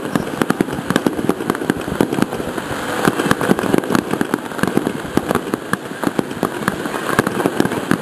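Fireworks display with many shells bursting in quick succession: a dense run of sharp bangs and crackles, several a second, over a steady rumble of overlapping booms.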